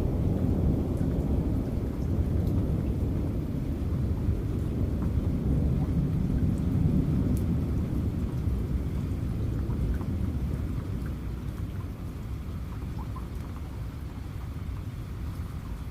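Rain falling with a long, low thunder rumble that slowly dies away, with scattered drops ticking over the steady hiss.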